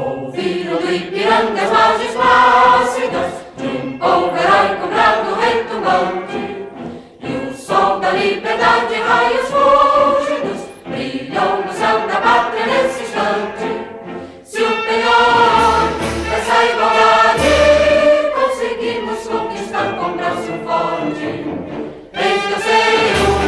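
Choir singing Brazilian football club anthems with orchestral backing, in short excerpts that cut to a new anthem about every seven seconds.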